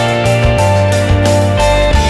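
Instrumental theme music with a steady beat.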